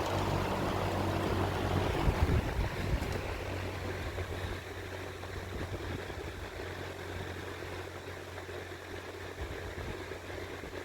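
Vintage Markel 20-inch metal-bladed box fan slowing from high to low speed: the rush of air fades over the first few seconds, then settles into a steady low-speed whir over the motor's steady hum. A few light knocks come about two seconds in.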